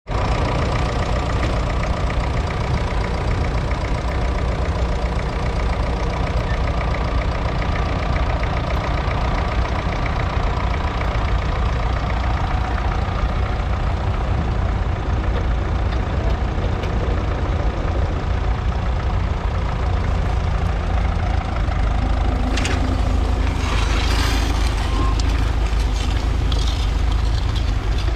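A 1953 Ferguson TEF20's 2.1-litre four-cylinder diesel engine running steadily under load as the tractor pulls a two-furrow mounted plough through the soil. A short burst of higher-pitched noise comes near the end.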